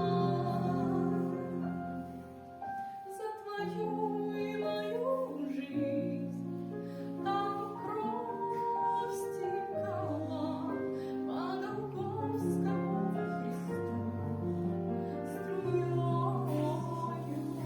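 Music: a Christian song, a woman singing a slow melody with held notes over sustained instrumental accompaniment.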